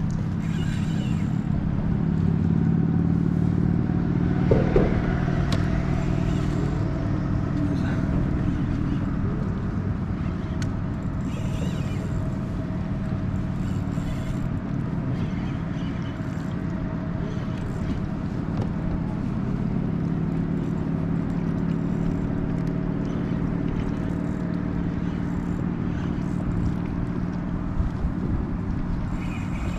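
Steady low engine drone that swells and eases slightly without stopping, with a few faint clicks.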